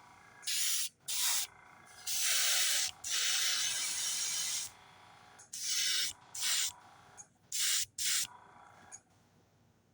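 Airbrush spraying paint in about eight hissing bursts, most of them short and two of them longer, about a second each, with a fainter steady hiss between bursts.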